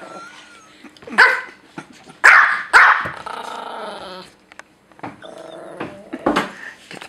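Pomeranian barking four times in short, sharp yaps, with a rough growl after the third bark, warning off a bigger dog.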